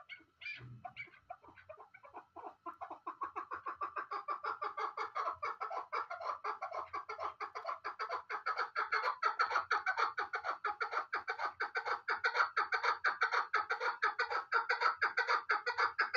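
Chukar partridge calling: a long run of rapid, repeated chuck notes that builds in loudness over the first few seconds and stops abruptly near the end.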